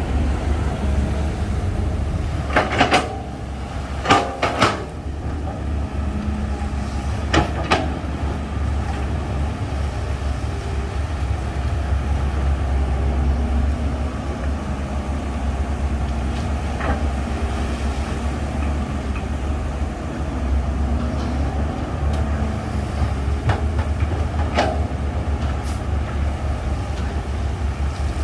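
Diesel engine of heavy earthmoving machinery running with a steady low rumble. Sharp knocks come through it: two close pairs in the first eight seconds, then a few single ones later.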